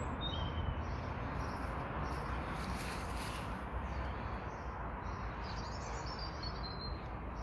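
Wild birds chirping outdoors: a short high chirp just after the start and a run of twittering notes near the end, over a steady low rumble and hiss.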